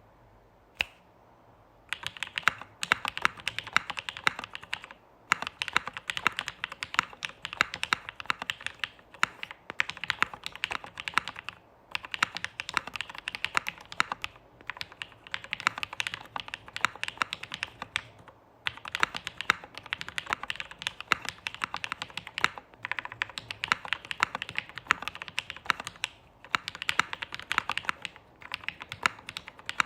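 Typing on an ai03 Polaris custom mechanical keyboard with lubed Durock POM switches, ABS keycaps and a half aluminium plate: quick, clacky keystrokes, described as creamy and deep with a soft bottom-out. One lone keystroke about a second in, then steady fast typing from about two seconds on, broken by brief pauses every few seconds.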